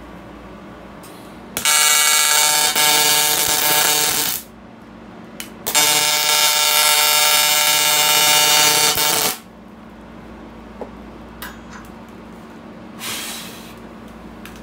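AC TIG welding arc at about 200 amps and 150 hertz, buzzing loudly in two runs of about three seconds each with a short break between them.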